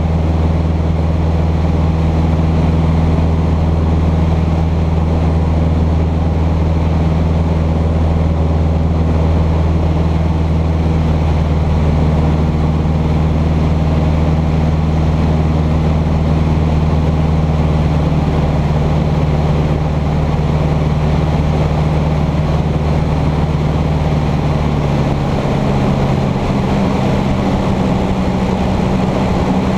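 Cessna 150's Continental O-200 four-cylinder engine and propeller droning steadily in cruise, heard inside the small cockpit. About 25 seconds in, the engine note changes pitch.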